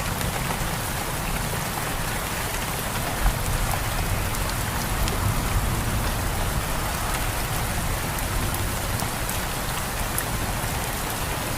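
Steady heavy rain in a rainstorm, with individual drops ticking on surfaces over a low rumble. A brief low thump sounds about three seconds in.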